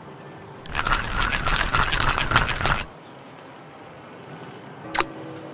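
Sound effect of a fishing reel clicking rapidly for about two seconds, over a low steady background. Near the end there is a single sharp click.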